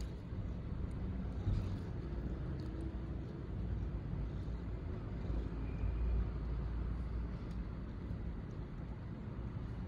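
A steady low rumble of background noise, with no distinct events.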